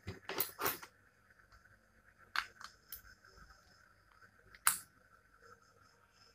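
Scattered sharp plastic clicks and taps from a Manto AIO 80W vape mod being handled, with its battery and snap-on side cover going in and out. The loudest click comes a little over four and a half seconds in.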